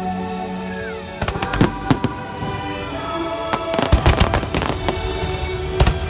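Fireworks bursting over the show's orchestral soundtrack: scattered bangs starting about a second in, a rapid cluster of bangs a little past the middle, and another sharp bang near the end.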